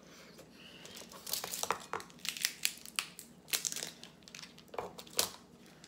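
Snow crab shell cracked and broken apart by hand: a run of sharp cracks and crunches.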